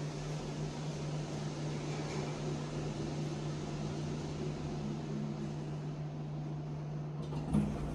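Steady low mechanical hum of building machinery, with a brief knock near the end as the OTIS traction elevator car arrives at the landing.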